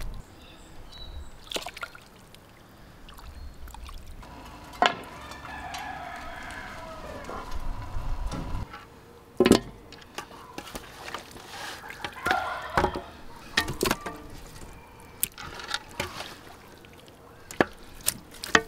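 Raw chicken pieces being handled and dropped into aluminium basins: scattered wet slaps and knocks against the metal, the loudest about halfway through.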